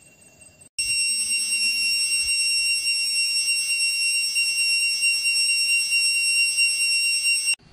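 Cicada singing, one loud, steady, high-pitched buzz that starts suddenly about a second in and cuts off suddenly just before the end.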